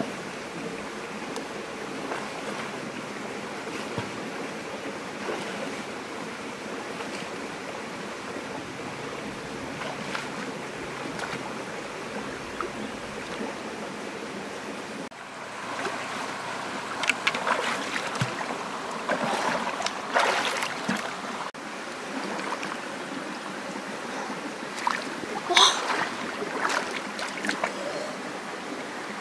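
A shallow stream flowing steadily; about halfway through, splashing and sloshing begin as a person wades and reaches into the water by hand, with a run of sharper splashes near the end.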